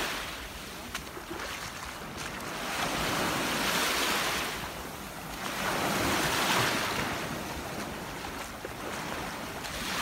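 Small ocean waves washing in at the shoreline: a rushing surf that swells and fades in slow surges every few seconds.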